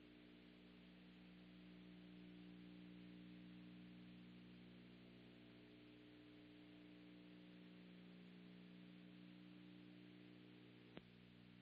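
Near silence: a faint steady hum with hiss, and a single sharp click near the end.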